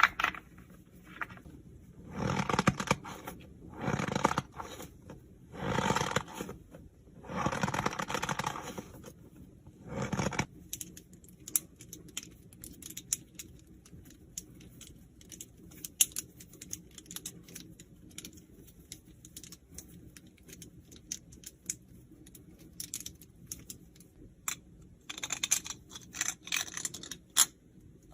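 Fidget toys being handled. It starts with four rustling, squeezing sounds about a second each. These are followed by a long run of small, irregular clicks and taps like key presses, growing denser near the end.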